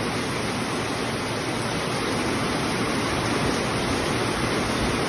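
Heavy rain pouring down steadily, a dense, even hiss of falling water with no breaks.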